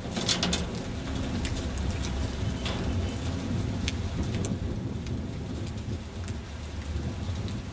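Footsteps on a wet steel checker-plate footbridge, a few sharp steps near the start that grow fainter and sparser as the walkers move off. Under them, a steady low rumble and hiss of wind and light rain.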